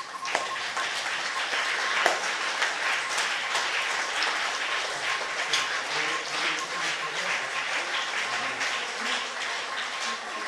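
A small audience applauding: many hands clapping at once.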